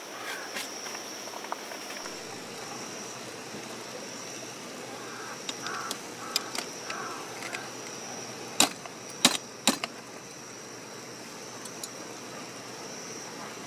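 Metal camp cookware being handled: light clinks, then three loud sharp metal clicks over about a second, more than eight seconds in. Underneath runs a steady rushing background with a steady high tone.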